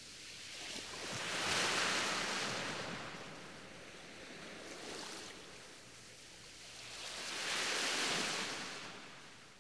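Waves washing on a shore: a rushing noise that swells and fades twice, peaking about two seconds in and again near the end.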